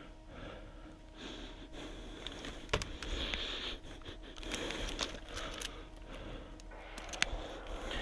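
A person breathing and sniffing close to the microphone, in uneven swells, with a few sharp clicks in between.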